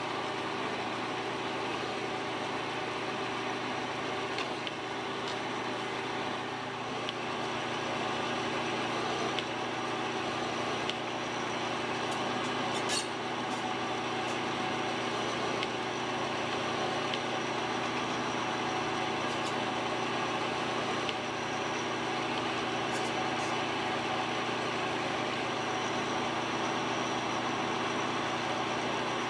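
Machine spindle running steadily, spinning a rubberized abrasive plug that is pressed onto an aluminium dashboard panel to engine-turn (jewel) it: an even motor hum throughout.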